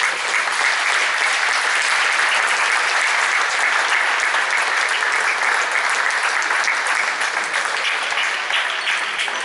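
Spectators in a sports hall clapping, a steady dense applause that eases off near the end.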